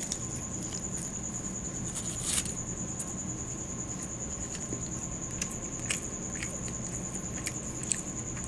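A cricket trilling in one steady, high, unbroken tone, with faint clicking mouth sounds of someone chewing soft food and a short rustle a little over two seconds in.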